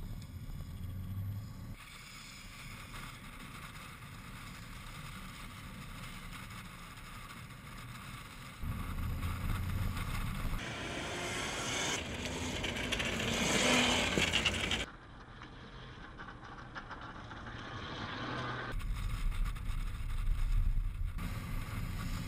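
Zero XU electric motorcycle riding on pavement, heard as tyre and wind noise over a series of short shots. The sound builds to its loudest about fourteen seconds in, then cuts off suddenly.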